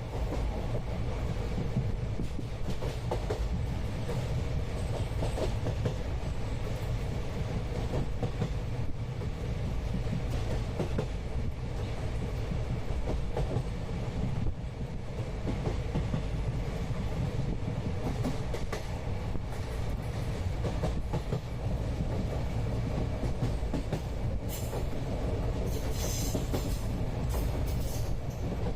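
Passenger train running, heard from inside a carriage: a steady rumble of wheels on the rails with a clickety-clack. Near the end come a few short, high hissing sounds.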